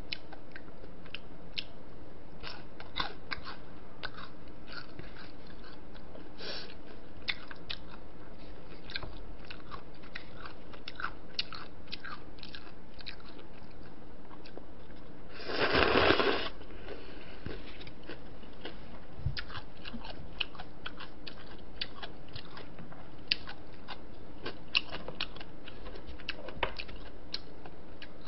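Close-up eating sounds: chewing with many small clicks and crunches, and a loud slurp of cold jjamppong noodles about halfway through, lasting about a second.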